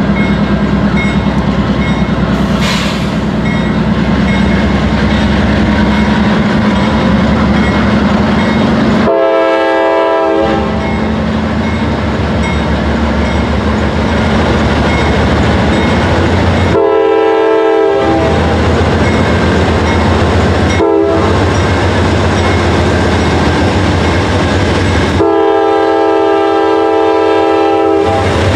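A train's locomotive horn sounds the grade-crossing pattern, two long blasts, one short and one long, several notes at once, over the loud steady rumble of the passing train.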